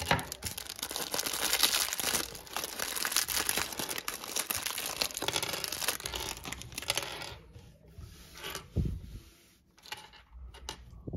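Thin clear plastic bag crinkling and rustling as hands work Lego minifigure pieces out of it, for about seven seconds. Then it goes quieter, with a few small clicks and taps of plastic pieces on the table.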